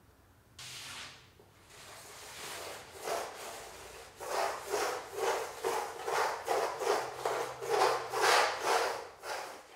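Hand tool scraping over the surface of a large painting in back-and-forth strokes: a single stroke about half a second in, then a steady rhythm of roughly two to three strokes a second that grows louder toward the end.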